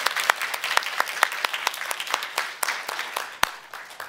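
Audience applauding, with single sharp claps standing out from the patter; the clapping dies away near the end.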